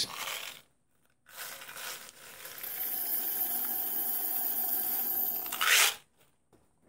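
Copper BBs poured from a cardboard box into an empty steel hydraulic cylinder tube: a steady pouring rush for about three seconds that gets louder just before it stops. Before it comes brief rustling of the cardboard box being opened.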